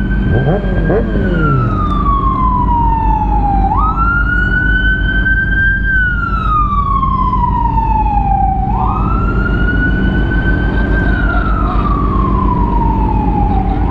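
Fire engine siren in a slow wail: the pitch jumps up quickly, holds briefly, then slides slowly down, three times over, about every five seconds. A steady low engine rumble runs underneath.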